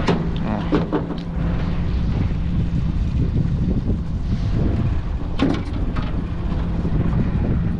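Wind buffeting the microphone over the steady low hum of a boat's outboard motor running at low speed, with a few light knocks around five and a half seconds in.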